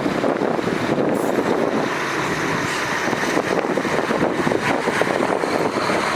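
Heavy diesel earthmoving machinery running steadily, a dense, rough engine noise.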